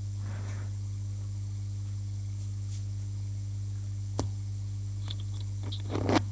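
Steady low hum with a single sharp click about four seconds in and a short burst of clicks and crackle near the end: the quiet stretch between pieces on an old gramophone record transfer.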